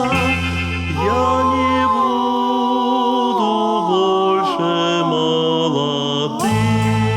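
Music: the instrumental close of a slow song, a melody of long held notes that glide from one pitch to the next, over a low bass note that drops out about two seconds in and comes back near the end.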